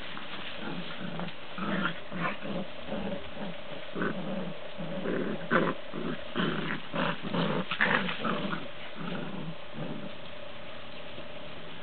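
Bouvier des Flandres puppies growling as they play-fight, in a string of short growls that build to their loudest a little past halfway and die away near the end.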